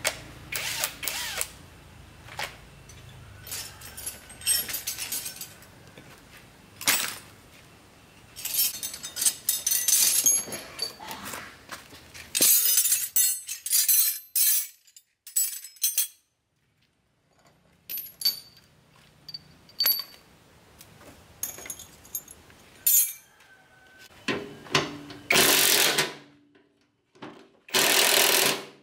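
Steel spanners and hand tools clinking and clattering as they are handled and laid out. Near the end, a cordless drill fitted with a socket runs in two short bursts on a bolt.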